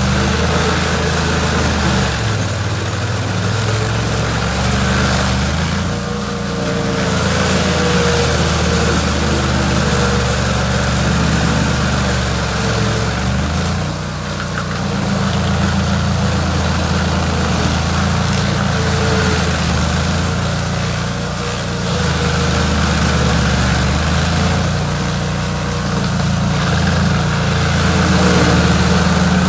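Chainsaw engine running continuously while cutting a log root, its note shifting every several seconds with brief dips in level.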